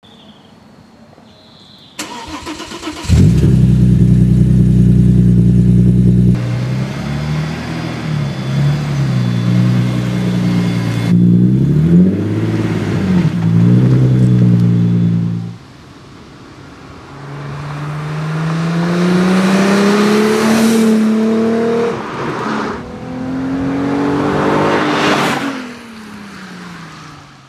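Audi A6 4B's reworked 2.8-litre 30-valve V6 through a 3-inch stainless exhaust with headers and race catalytic converters: it starts about three seconds in and idles, is revved in a series of blips, then the car accelerates in two long pulls and passes, the pitch falling as it goes by.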